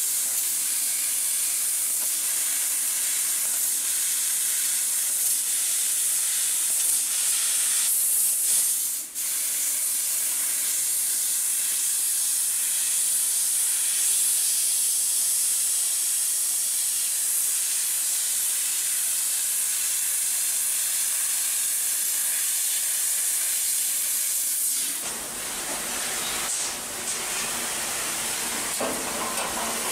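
Laser cutter hissing steadily as its cutting head burns patterns through sheet metal, the sound sitting high. It drops out briefly about nine seconds in, and near the end it gives way to a lower, rougher noise.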